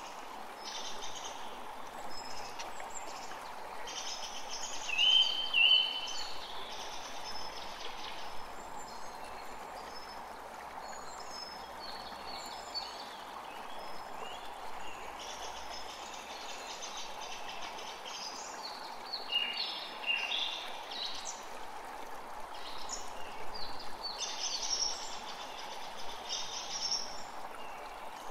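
Forest creek running steadily, with songbirds calling and singing over it in short phrases and trills; the loudest call comes about five seconds in.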